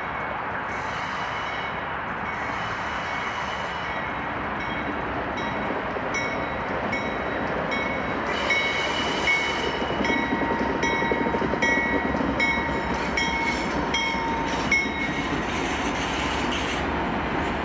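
Union Pacific freight train's diesel locomotives passing close by, engines and wheels on the rails running steadily and growing louder as the locomotives go past about halfway through. A high ringing tone repeats about twice a second through the middle.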